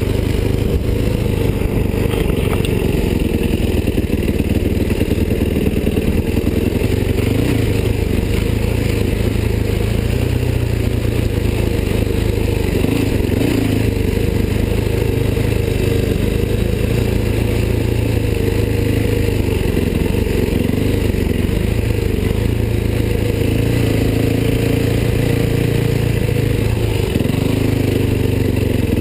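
Yamaha WR426F dirt bike's single-cylinder four-stroke engine running steadily under load up a trail, its pitch rising and falling a little with the throttle. Heard close, from a camera mounted on the bike.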